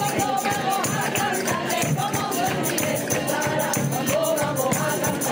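A group of people singing together, with tambourine jingles shaken and struck in a steady beat.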